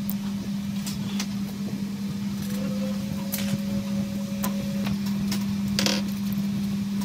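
A steady low hum throughout, with a few light clicks and taps from fingers handling a phone rear camera module on a rubber repair mat; the sharpest tap comes about six seconds in.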